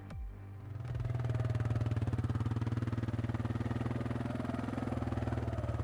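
A small engine running steadily at idle, with a fast, even pulse. It comes in about a second in, as a short piece of electronic music ends.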